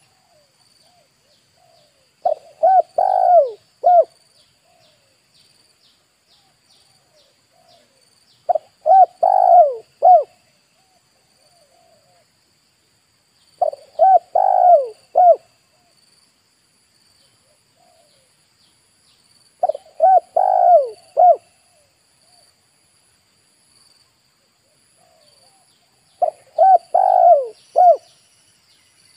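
Spotted dove cooing: five loud phrases of several rolling coo notes, each under two seconds, repeated about every six seconds. Fainter short coos fall between them, over a faint, steady high-pitched trill in the background.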